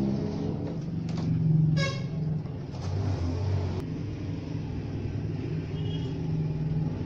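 Motor vehicle engine running with a steady low rumble, and a short horn toot about two seconds in.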